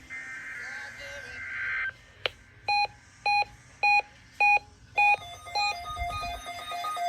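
NOAA Weather Radio alert test signal: a harsh, buzzing digital header burst ends about two seconds in. Then weather radio receivers sound their alert beeps, one beeping about twice a second, and about five seconds in further receivers join with faster beeps at slightly different pitches, overlapping. It is the receivers responding to a Required Weekly Test.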